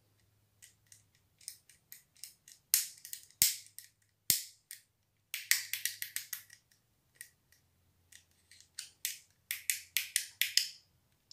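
Shimano 8-speed rear bicycle shifter being clicked through its gears by hand: sharp ratcheting clicks in several quick runs with short pauses between, the densest runs about halfway through and near the end.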